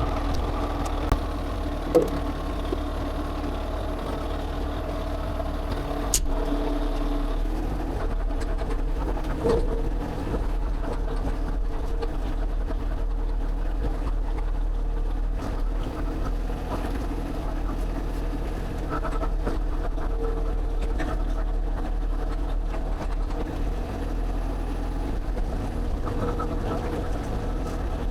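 Excavator's diesel engine running steadily, with a couple of sharp knocks about two and six seconds in.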